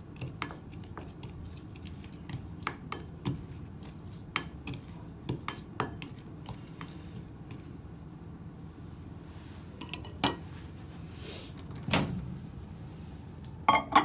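Plastic spatula stirring an oil, spice and onion mixture in a glass bowl, scraping and tapping against the glass in quick, irregular clinks. It quietens after several seconds, and a few single louder knocks follow near the end.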